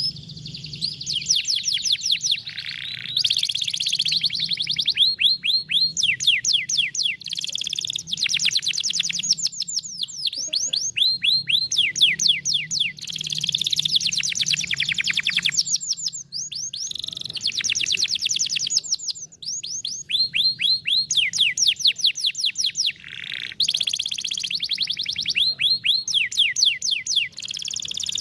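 Canary singing in long, fast trills of rapidly repeated sweeping notes, phrase after phrase with short pauses between them.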